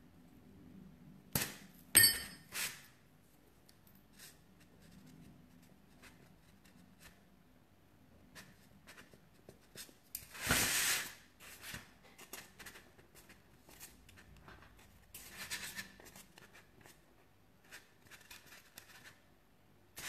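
Small sugarcraft modelling tools being handled and set down on a work table: a few sharp clicks near the start, the loudest with a short metallic clink, then brief bursts of handling noise about ten and fifteen seconds in.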